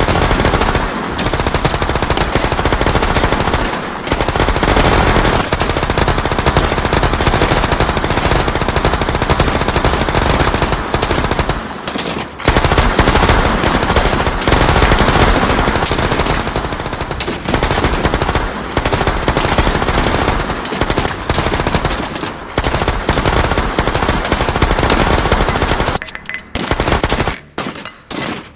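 Battle sound effects of dense, sustained machine-gun and rifle fire, with a brief lull about twelve seconds in. Near the end it thins to scattered single shots.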